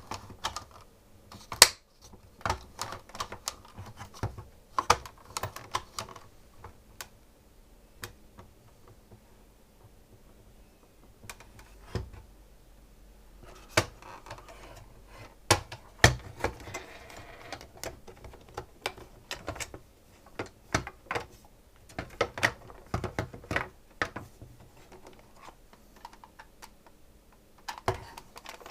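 Irregular clicks, taps and knocks of hard parts being handled while a SodaStream soda maker is worked on, coming in clusters with a quieter stretch about a third of the way in and a short rustle or scrape a little past the middle.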